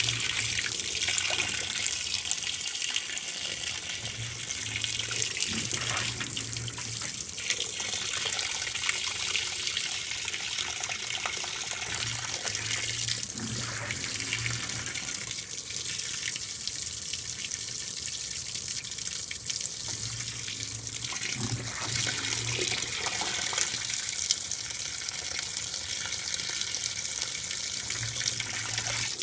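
2012 LG top-load washing machine filling: water pours steadily into the tub on the delicates cycle, filling to its lowest level, just above the impeller. A low hum from the machine comes on for a couple of seconds at a time, about five times.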